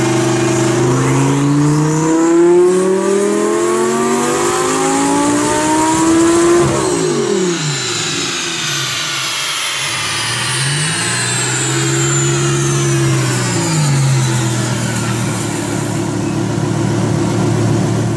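Underground Racing twin-turbo Lamborghini Gallardo V10 making a pull on a chassis dyno. The engine note rises steadily for about six seconds, then cuts off sharply as the throttle closes, leaving a high whine that falls away over several seconds. A shorter rev rises, holds and falls a few seconds later before the engine settles back to a steady run.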